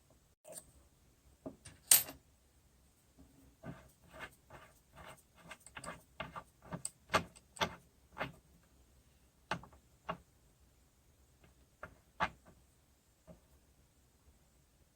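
Irregular sharp clicks and light knocks of small hard parts being handled and tried together. They come a few a second for a stretch in the middle and are sparser near the end, and the loudest click comes about two seconds in.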